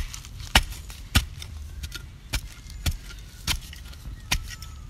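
A pointed hand tool stabbing into dry, stony soil while digging a small hole. It makes a sharp strike a little under twice a second, with loose earth and grit scraping after each.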